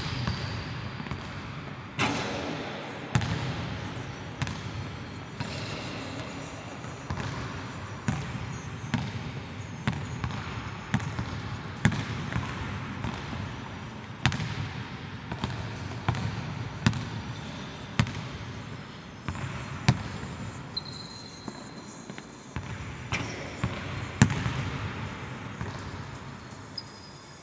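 Basketball bouncing on a hardwood court as it is dribbled, about one bounce a second, each bounce echoing through a large empty arena.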